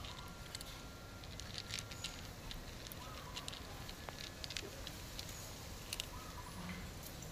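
Two cats chewing dry kibble from plastic plates: irregular small crunches and clicks.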